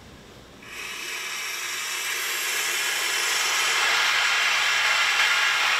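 Steam hissing in a stainless-steel commercial crab steamer cabinet as blue crabs are steamed. The hiss starts about half a second in, swells over the next few seconds and then holds steady and loud.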